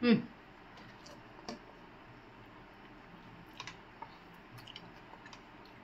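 A short falling vocal 'hmm' right at the start, then faint, scattered small clicks of someone eating from a spoon.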